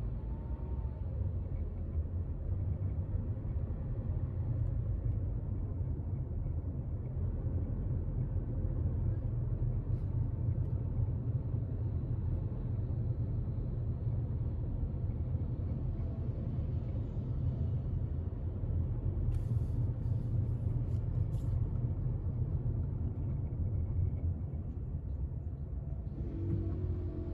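Steady low rumble of a car's engine and tyres heard from inside the cabin while driving slowly. A few short faint clicks come about two-thirds of the way through.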